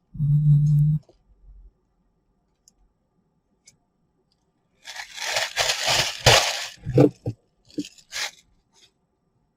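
A low buzz for about a second at the start, then, from about five seconds in, plastic packaging crinkling and tearing as it is handled, followed by a few short knocks.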